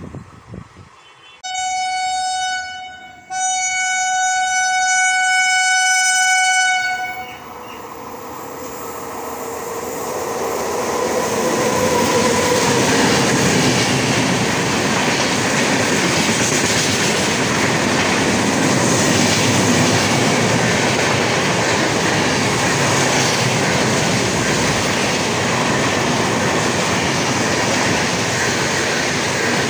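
A train horn sounds twice, a short blast and then a longer one of about three and a half seconds. Then a passenger train passes close by, its rush of wheels and coaches building over several seconds and holding steady.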